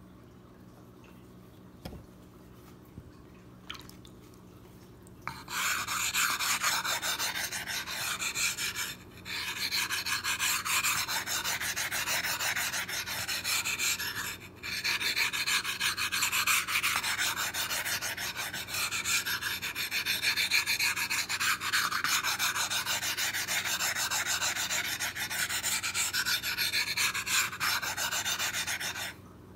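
A flat white plate rubbed back and forth on the wet face of a Wakasa awasedo Japanese natural sharpening stone: a steady, gritty stone-on-stone scraping in fast strokes. It starts about five seconds in, after a few light taps, breaks off briefly twice and stops just before the end.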